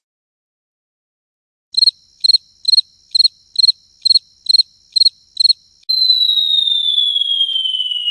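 Cartoon-style sound effect: a quick run of nine short, high chirping beeps, about two a second, then a long high whistle sliding steadily down in pitch, like something falling.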